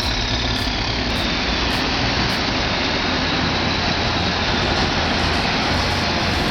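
Heavy crawler bulldozer engine running steadily under a dense, even rumble, with a faint high whine that falls in pitch over the first few seconds.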